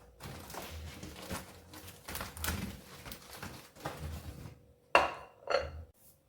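Dishes and kitchenware being handled: a run of light knocks and rattles, then two sharp, ringing clinks about five seconds in.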